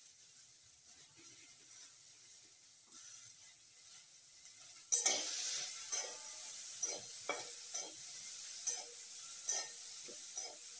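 Faint scraping of coconut on a hand grater. About five seconds in, a sudden loud sizzle as green peas fry in a kadhai, with a metal spatula scraping and knocking the pan in repeated strokes.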